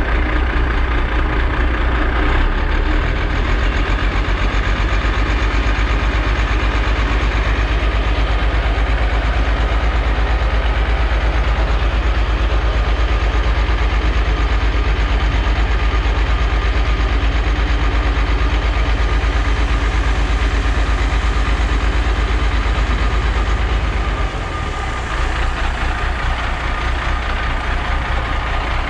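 Large diesel engine running steadily with a deep, evenly pulsing note; about 24 seconds in it drops slightly in level and the note changes.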